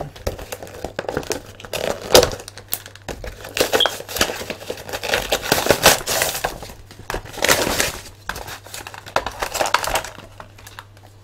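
An action figure's cardboard and plastic blister packaging being pulled apart by hand: irregular crinkling, rustling and tearing that dies down about ten seconds in.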